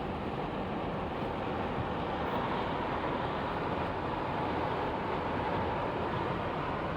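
Car driving at steady speed: even road and engine noise as heard from inside the cabin, with a faint steady whine.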